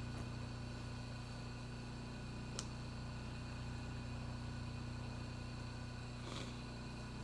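Electric grinder motor running steadily with nothing against the wheel: a low, even hum, with a single light click about two and a half seconds in.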